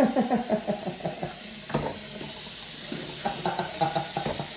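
Kitchen tap running into a stainless steel sink, with quick runs of slurping and gulping from a cup of water: one in the first second and a half and another from about three seconds in.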